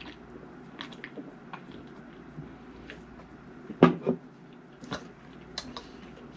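A man gulping beer from a can, with small swallowing clicks, then about four seconds in a short loud sound as the can comes back down on the table, followed by a few light clicks.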